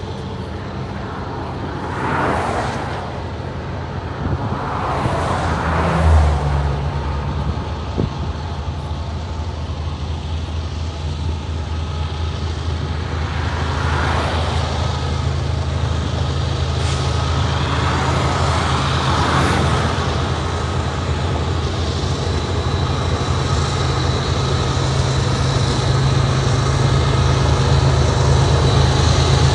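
Diesel-electric freight locomotives under power as the train approaches: a steady low engine drone that grows gradually louder, with a few swells of hiss over it.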